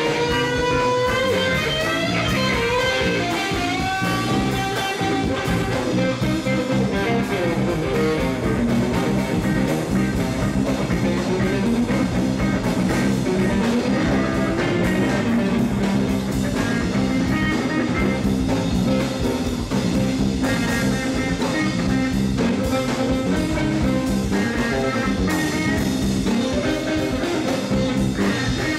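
Live rock jam: electric guitars playing a bluesy, psychedelic improvisation over drum kit and bass. In the first few seconds a lead guitar line bends and slides between notes.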